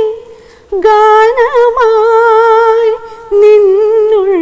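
A woman singing a Malayalam film song unaccompanied, in long held notes with a slight waver: a phrase begins about a second in, breaks briefly near three seconds, and the next phrase follows.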